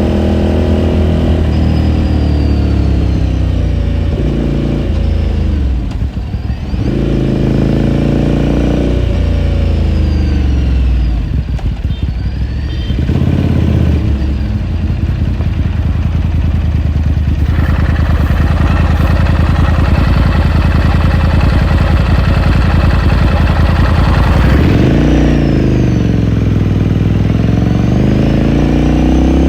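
Onboard sound of a 2018 Ducati Scrambler Sixty2's 399 cc air-cooled L-twin on the move. The engine note drops and climbs again several times as the throttle is closed and reopened, with a steady stretch of cruising in between.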